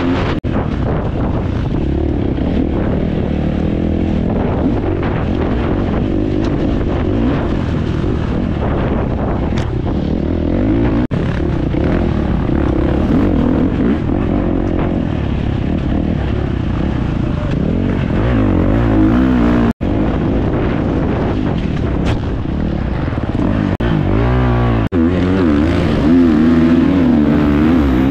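Off-road motorcycle engine running hard and revving up and down as the throttle is opened and eased over a rough cross-country course, with a few brief drops in the sound.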